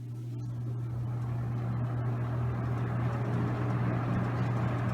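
Galaxy (Lasko) Model 3714 20-inch box fan starting up on low speed: its motor hums steadily while the rush of air from the blades builds over the first few seconds, then evens out. There is little of the startup noise these fans often make.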